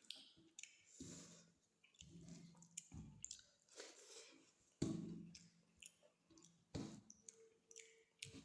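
A person eating: faint, irregular wet chewing and mouth clicks, with a few louder moments.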